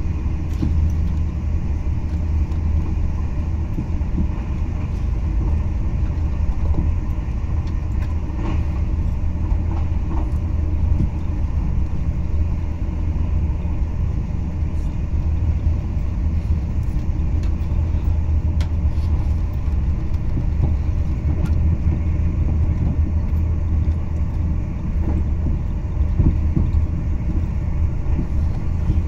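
Steady low rumble of a TGV passenger car in motion, heard from inside the cabin: wheels on rail and running noise of the train.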